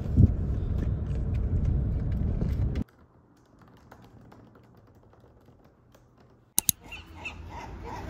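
Steady low rumble of car road noise that cuts off about three seconds in, giving way to soft tapping on a laptop keyboard. Near the end come two sharp clicks, followed by a light outdoor background.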